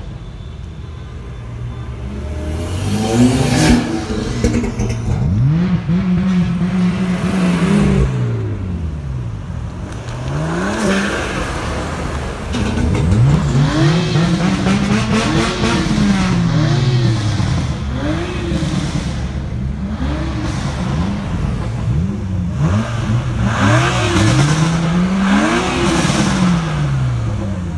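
Several cars revving and accelerating past in turn, each engine note climbing and dropping again and again, with short crackles in between.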